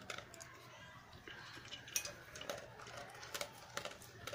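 A dog eating dry kibble from a metal bowl: irregular crunching as it chews the kibble, with sharp clicks of the pieces against the metal bowl.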